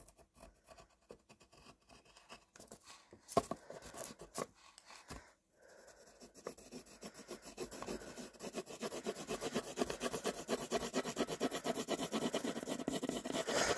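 Pencil scratching on paper: a few faint strokes at first, then from about six seconds in quick back-and-forth shading strokes that grow steadily louder.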